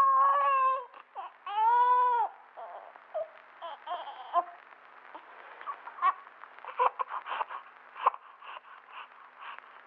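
Newborn baby crying: a cry about a second long, then a second cry that rises and falls in pitch. These trail off into short, fainter whimpers and scattered small mouth and breathing sounds.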